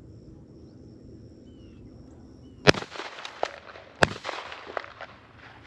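Two loud shotgun shots about a second and a half apart, fired at passing doves, with a few fainter pops following them.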